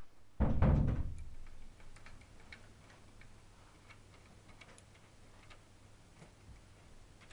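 A dull thump about half a second in, then light, irregular plastic clicking as the tipping mechanism of a Lego Technic trailer is worked by hand and the bed starts to lift.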